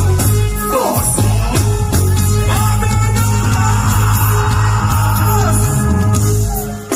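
Live concert band music over a PA, with a heavy bass line and a voice singing over it.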